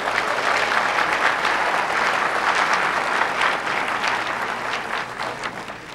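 Audience applauding: dense clapping that is strongest in the first few seconds and then tapers off.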